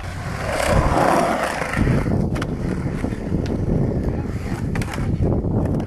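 Skateboard wheels rolling over concrete with a steady rumble, and a few short clicks as the board passes over bumps or joints.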